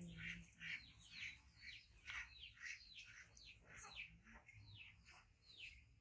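Faint, continual chirping of small birds: many short, quickly falling chirps, two or three a second.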